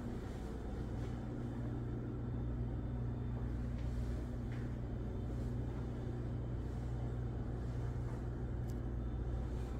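A steady low hum of running household machinery, with a few faint ticks.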